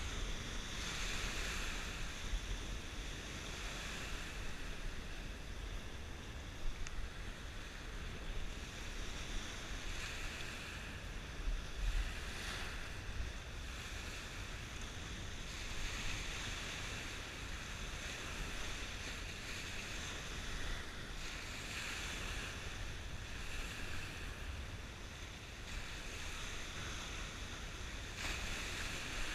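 Small surf waves breaking and washing up the sand, the wash rising and falling every few seconds, with wind rumbling on the microphone.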